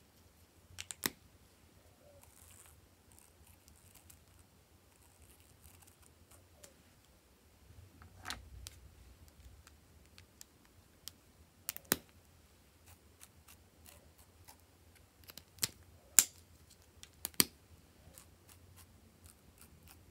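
Sharp plastic clicks from candy-shaped marker caps being pulled off and snapped on, about half a dozen, some in quick pairs, the loudest late on.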